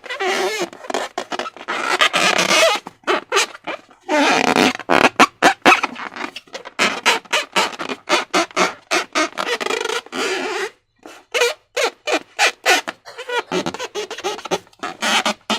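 Slime and balloon rubber being squeezed and worked by hand, making wet squelches and rubbery squeaks. The sounds run densely at first, then break into many quick separate squishes.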